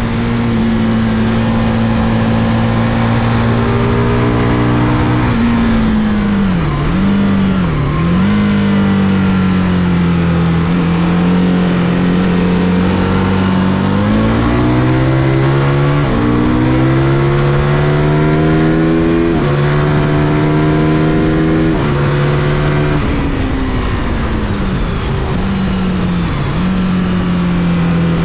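Racing motorcycle engine at full track pace over heavy wind rush. The revs dip twice around six to eight seconds in as it slows for a corner, then climb through the gears with upshifts near the middle and again near three-quarters through, before dipping once more near the end.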